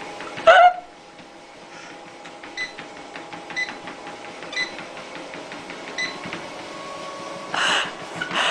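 Treadmill running with a steady motor hum and a light tick about once a second. A short, loud pitched sound comes about half a second in, and a brief rush of noise near the end.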